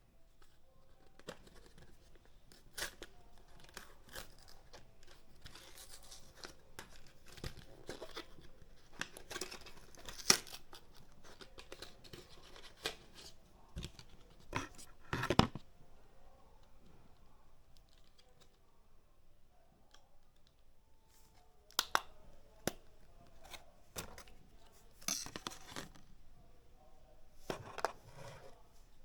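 A package being opened and handled: tearing and rustling of packaging with crinkling wrap, broken by scattered sharp clicks and knocks. The loudest knocks come about ten and fifteen seconds in.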